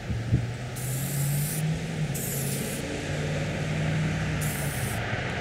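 Aerosol spray paint can hissing in three short spurts, the first the longest at nearly a second, the other two shorter. A steady low drone runs underneath.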